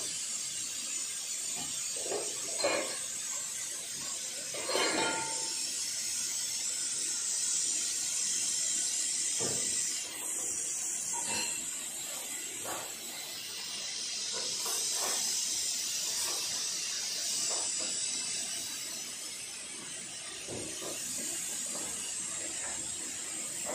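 Pressure cooker venting steam through its release valve in a steady hiss, letting out the built-up pressure so the lid can be opened. A few light knocks sound in the first few seconds.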